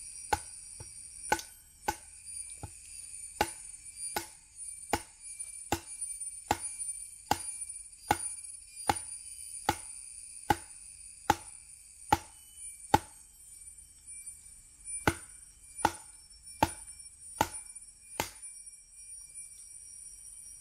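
A steady series of chopping strikes, about one every three-quarters of a second. They pause for a moment after about 13 seconds and stop after about 18 seconds.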